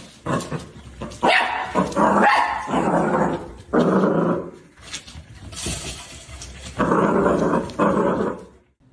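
A dog barking and growling, with a run of about half a dozen loud, harsh barks.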